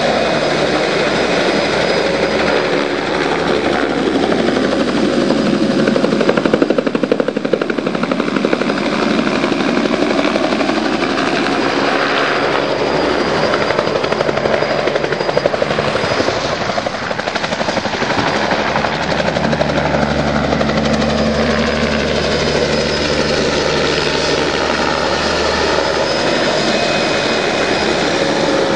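Turbine-powered Hiller helicopter flying low with a long line slung beneath it. The rotor and engine run loud and steady, their pitch bending up and down as it passes by.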